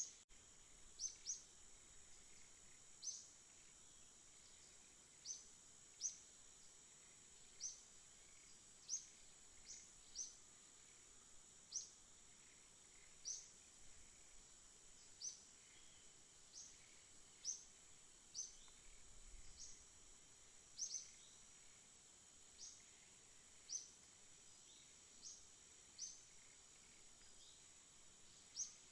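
A small bird giving a single short, high chirp over and over, roughly once every second or so. A faint, steady high-pitched whine runs underneath.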